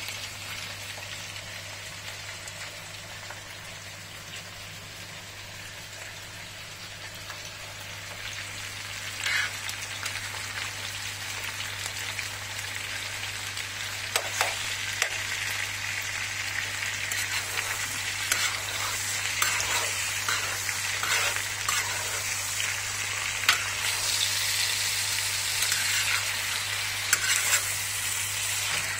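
Food frying and sizzling in a steel sac pan, getting louder from about eight seconds in. From then on a utensil stirring the pan makes intermittent clicks.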